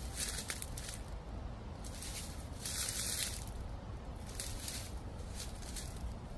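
Footsteps crunching on dry fallen autumn leaves, a crackly rustle with each step, with a low wind rumble on the microphone underneath.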